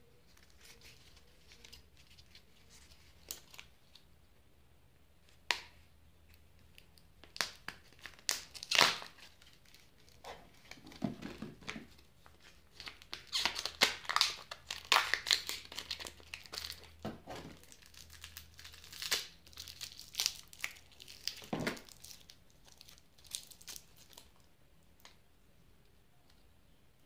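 Hands tearing and crinkling the plastic wrapper of a toy surprise egg and pulling its plastic shell apart: irregular bursts of rustling with sharp clicks, busiest through the middle, quieter at the start and near the end.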